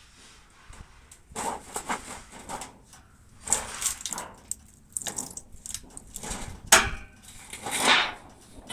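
A series of irregular knocks and scraping noises, with one sharp click about seven seconds in.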